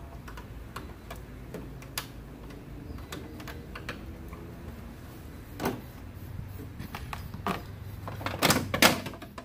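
Scattered clicks and knocks of trim clips being worked loose from the car's front-end panels, with a quick cluster of the loudest, sharpest clicks near the end.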